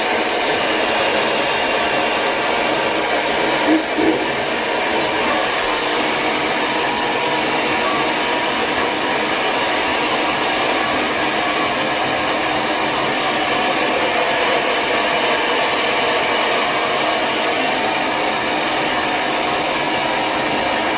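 Lange Soleil hair dryer running steadily, blowing a continuous rush of air.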